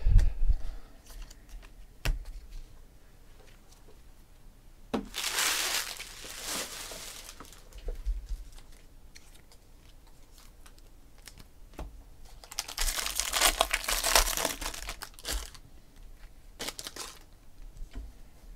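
Foil wrapper of a trading card pack crinkling and tearing open in two spells of a couple of seconds each, about five seconds in and again about twelve seconds in. Light clicks of cards being handled come in between.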